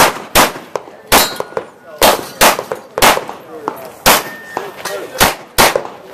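Pistol shots fired in a practical shooting course of fire, about ten at uneven intervals of a half-second to a second, with steel targets clanging and ringing as they are hit.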